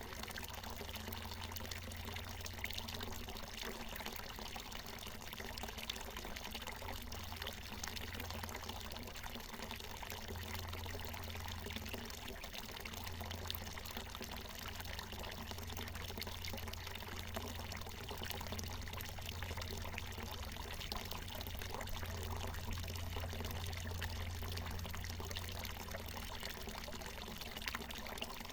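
Water from a natural mountain spring falling and splashing in a steady stream, with an even hiss of pouring water and a low rumble underneath.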